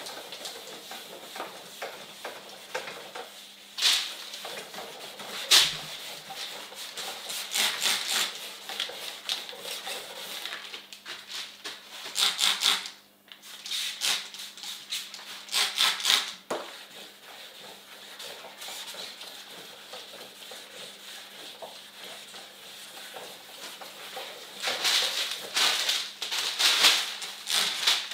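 Hand wet-sanding of a painted car bumper with 1200-grit wet sandpaper: quick back-and-forth rasping strokes of the wet paper on the paint. A few louder bursts near the middle fit squirts from a hand spray bottle keeping the surface wet.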